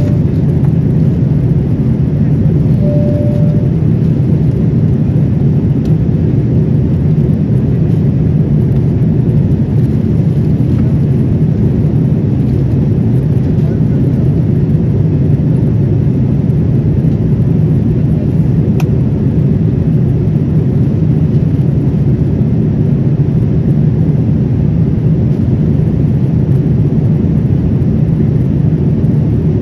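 Steady cabin noise of a jet airliner in flight: the low, even rumble of engines and airflow. A brief single tone sounds about three seconds in, and a faint click comes a little past the middle.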